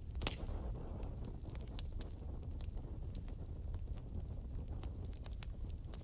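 Wood fire burning down to glowing embers, crackling with irregular sharp pops over a steady low rumble of burning.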